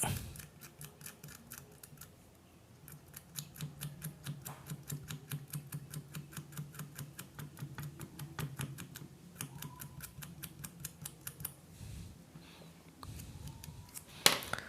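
A blade scraping the enamel insulation off the aluminium winding wire of a ceiling fan coil: a long run of short, quick scrapes, about five a second, with a low steady hum underneath.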